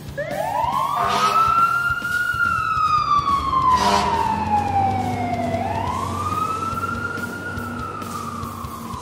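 Emergency vehicle siren in a slow wail, its pitch rising and falling twice, with two short sharp sounds about a second and about four seconds in.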